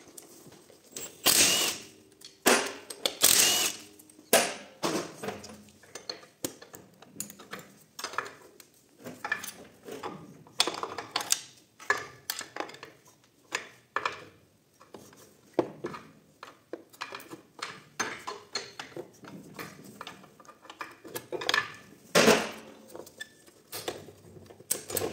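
Metal on metal clanking, scraping and clinking as the clutch pack of an Audi multitronic CVT gearbox is pried loose with a long screwdriver and worked out of the aluminium case. Irregular knocks throughout, with a few louder ringing strikes about a second in, around three seconds in and again near the end.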